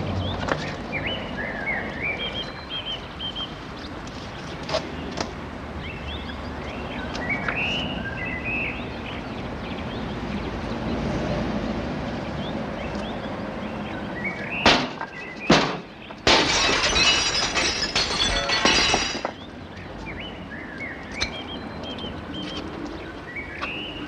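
Two sharp knocks, then a pane of window glass shattering and pieces falling for about three seconds, with birds chirping in the background.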